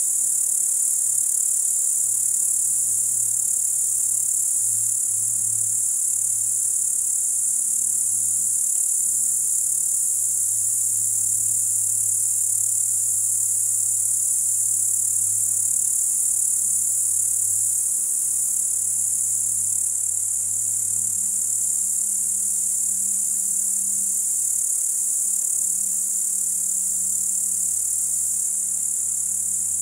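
Night-time crickets chirring continuously in a steady, high-pitched chorus, with a faint low hum underneath.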